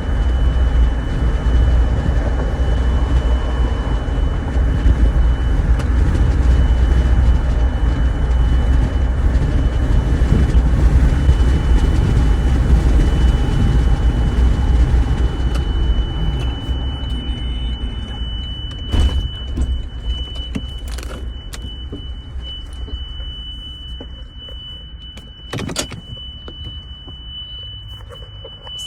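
A steady high-pitched tone from a 2023 Toyota Tundra Platinum, the unexplained deafening noise that began on the highway, heard over the truck's low road rumble. The rumble dies away from about halfway as the truck slows, a few sharp clicks follow, and the tone cuts off at the very end.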